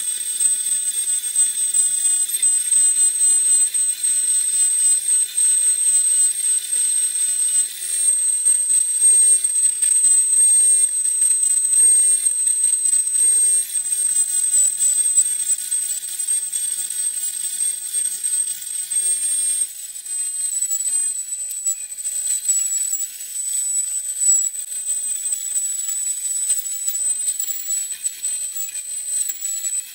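CNC router's trim-router spindle running at a high, steady whine over a steady hiss as it cuts a circular tabletop out of a glued-up wood panel; the whine dips slightly in pitch about two-thirds of the way through.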